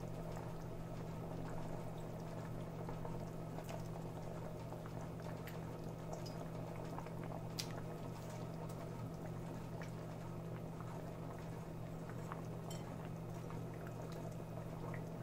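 Coconut fish curry bubbling at a full boil in a clay chatti, with a steady low hum beneath it and a few faint ticks as fish pieces are slipped in.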